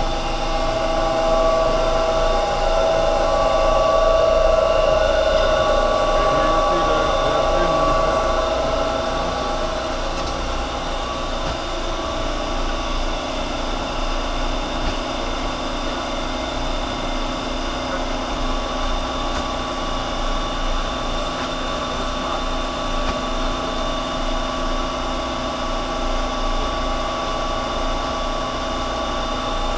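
Steady mechanical hum of running fan machinery, a whir holding several constant tones, a little louder in the first few seconds.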